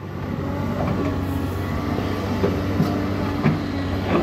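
Doosan DX225 excavator's diesel engine running hard under digging load, growing louder in the first second, with a steady hum and a few sharp knocks.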